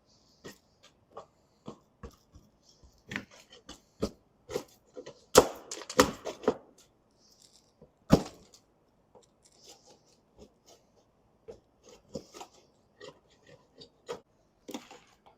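Hand-tool work on a camper's roof vent: irregular clicks, taps and scraping. A cluster of louder knocks comes about five to six and a half seconds in, and a single sharp knock about two seconds later.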